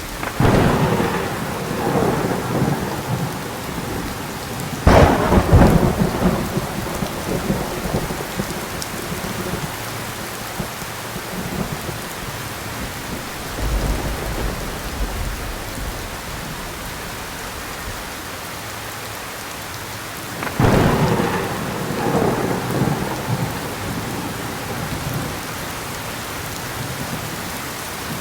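Steady heavy rain with thunder: three sharp cracks, each rolling into a rumble for a few seconds, about half a second in, about five seconds in and about twenty-one seconds in.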